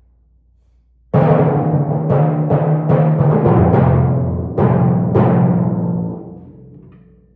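Timpani struck with mallets. After about a second of quiet comes a loud phrase of rapid strokes across several drums with heavy accents, and then the drums ring on and die away.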